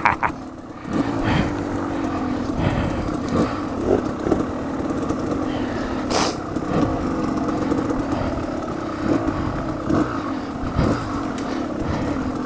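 Dirt bike engine running at a low, steady pace on a trail, with scattered knocks and clatter from the bike over rough ground.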